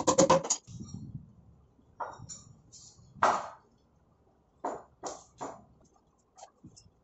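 Hands handling plywood panels and a foil packet: a few separate knocks and rustles, the loudest about three seconds in.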